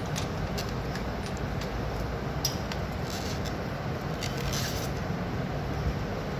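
Steady background hiss and hum, with a few faint light clicks and scrapes as a wing nut is turned onto the bolt through the metal hub of a wire-frame wall clock.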